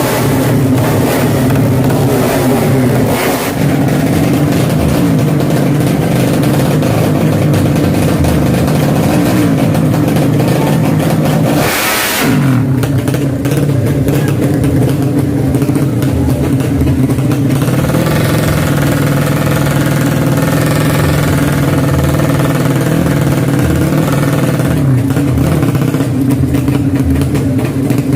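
Drag-racing motorcycle engines running loudly and revving, with a short sharp surge of noise about twelve seconds in.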